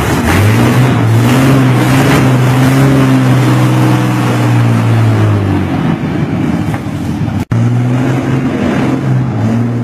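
V12 engine in a ride-on lawnmower running at a steady speed with a low, even drone. A brief break about seven and a half seconds in, then it runs on.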